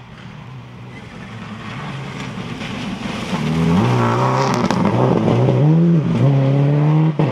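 Subaru Impreza rally car's turbocharged flat-four engine approaching at speed and passing, growing steadily louder. Its note dips and rises between about four and six seconds in as the driver lifts and changes gear, then holds a steady loud pitch.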